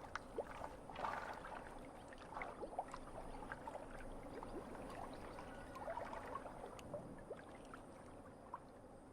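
Faint water sounds: gentle gurgling and trickling, with scattered small ticks and plops.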